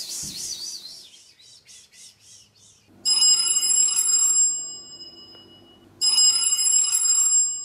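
Mobile phone ringtone ringing twice: a bright electronic ring of several steady tones. The second ring starts about three seconds after the first and cuts off suddenly near the end as the call is answered.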